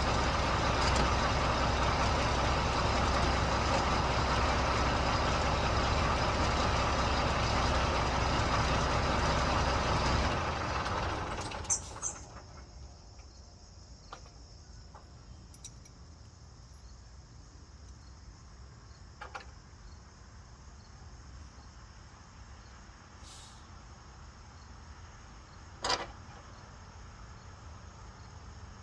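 A semi truck's engine idling, shut off about ten seconds in. Crickets chirp steadily after it stops, with a single sharp click near the end.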